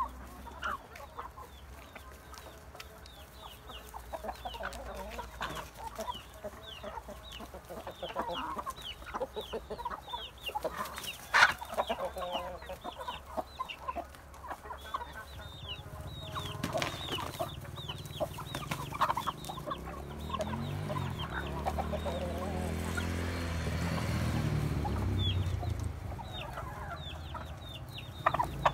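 A flock of backyard chickens clucking softly as they feed, with many high, thin falling peeps running throughout. A single sharp click about eleven seconds in, and a low rumble that builds through the second half.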